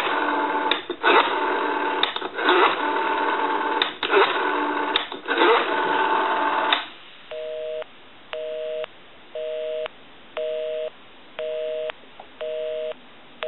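Rotary dial of an old American wooden wall telephone pulsing out a number, clicks over steady line tones, for about seven seconds. Then a telephone busy signal: two steady tones beeping on and off about once a second, meaning the dialed line is engaged.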